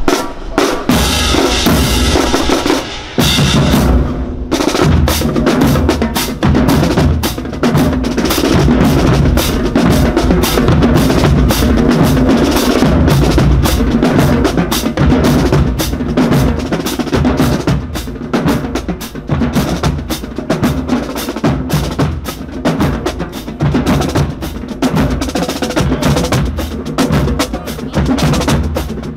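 Marching band drumline playing a marching cadence: snare drums and bass drums beating a fast, steady rhythm.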